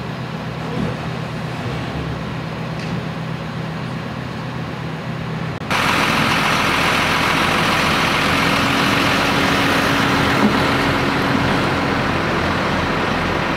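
Truck engines running steadily, a low hum. About six seconds in the sound cuts abruptly to a louder, hissier engine noise with a steady drone.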